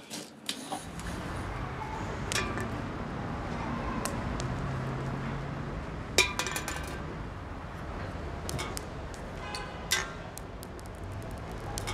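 Steady outdoor street background hum with a few sharp clicks and clinks over it. The loudest is a quick cluster of clinks about six seconds in, with another near the ten-second mark.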